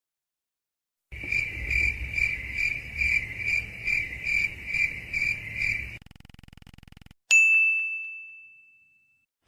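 Cricket chirping sound effect, the stock awkward-silence gag: even chirps about twice a second for some five seconds. Then a brief faint buzz and a single bright ding that rings out and fades over about two seconds.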